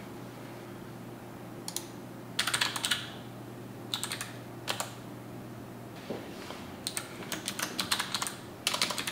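Computer keyboard typing terminal commands in short runs of keystrokes: a quick run about two seconds in, a few single keys in the middle, and longer, faster runs near the end.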